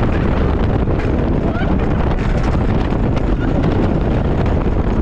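Rocky Mountain Construction wooden roller coaster train running fast along its track, wheels rumbling and clattering, under heavy wind rushing over the microphone.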